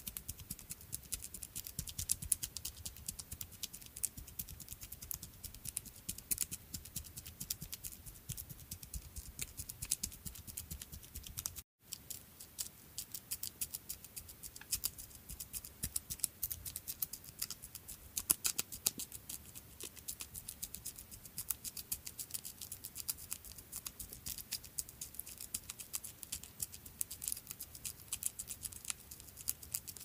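Small creature's footsteps sound effect: a rapid, dense pattering of light clicks and scratches, with a brief drop-out to silence about twelve seconds in.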